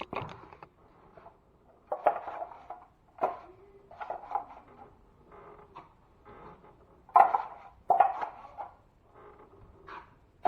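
Irregular scrapes and knocks of hand tools working a drywall ceiling seam, several sharp strokes with quieter scraping between them.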